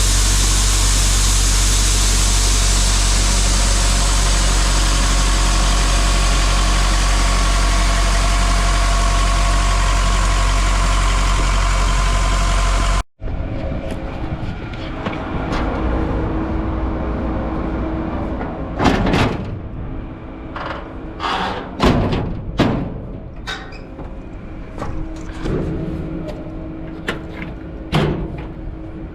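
A farm machine's engine drones loudly and steadily. About halfway through, the sound cuts abruptly to a quieter steady hum with a series of sharp metallic knocks and clanks, several close together near the end.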